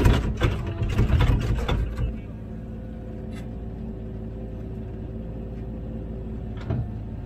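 Komatsu PC16 mini excavator's diesel engine running steadily, with a loud clatter of soil tipping from the bucket into a truck bed that ends about two seconds in.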